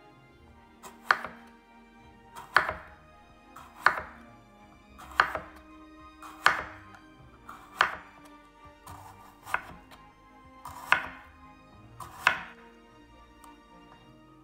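Knife slicing a Korean melon (chamoe) thinly on a bamboo cutting board, each stroke ending in a sharp knock of the blade on the wood, about one every second and a half, with two lighter strokes in the middle. Soft background music runs beneath.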